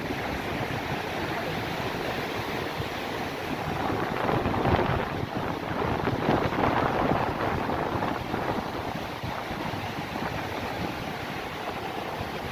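Rough sea surf breaking on the shore, with strong wind on the microphone; the waves swell louder about four to seven seconds in.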